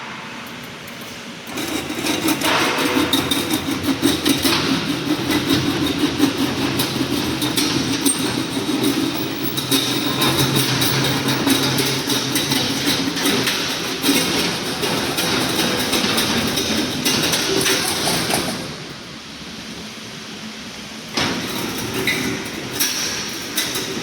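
Wire mesh welding machine running, a dense rapid clatter of mechanical strokes over a steady machine hum. The clatter starts about two seconds in, stops about three-quarters of the way through leaving a lower hum, and starts again a few seconds before the end.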